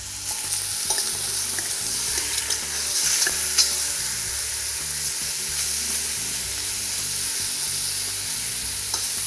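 Diced chicken sizzling in hot oil in a stainless steel pot, stirred with a small metal spoon that clinks and scrapes against the pot now and then, most often in the first few seconds.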